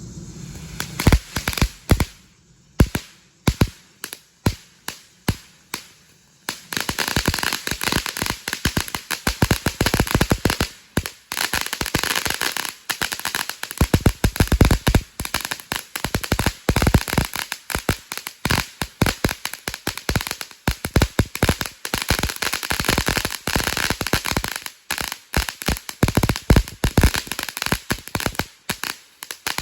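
Consumer firework called Crickets going off: separate sharp bangs about twice a second for the first few seconds, then from about six seconds in a dense, continuous crackle of rapid pops.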